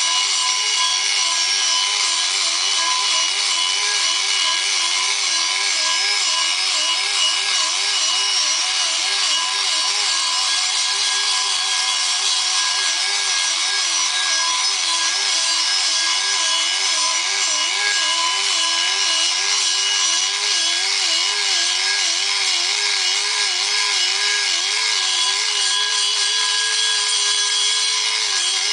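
Pneumatic die grinder grinding inside an aluminium 426 Hemi cylinder head, running continuously over a steady hiss. Its whine wavers up and down in pitch about twice a second.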